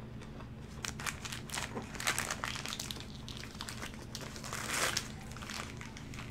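Paper burger wrapper crinkling as it is unfolded and folded back from a lettuce-wrapped burger, in irregular crinkles starting about a second in, loudest around two seconds and five seconds in.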